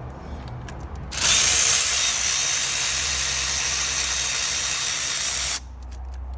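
A power tool, run with a socket on engine bolts, spins steadily for about four and a half seconds. It starts suddenly about a second in and stops abruptly.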